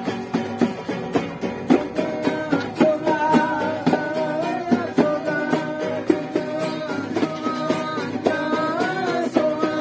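Acoustic guitars strummed together in a steady rhythm, with a group of voices singing a melody along with them from about two seconds in.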